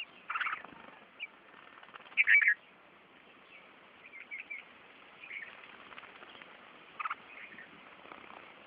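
Birds chirping in short, separate calls, the loudest a little after two seconds in, with a quick run of three notes around four seconds.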